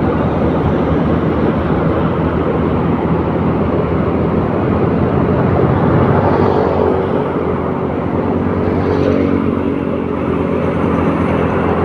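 A moving vehicle's engine drone and road noise, running steadily with no change in pace.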